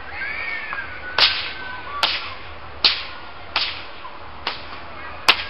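A long whip cracked six times in a row, one sharp crack a little under every second, the first and the last the loudest.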